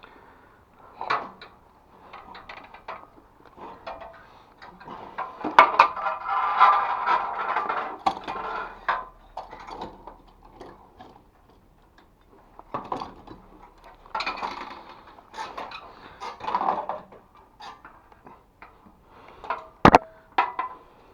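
Hard, light objects, likely metal, being handled: irregular clinks, knocks and rattles, with a longer clattering spell a few seconds in and one sharp knock near the end.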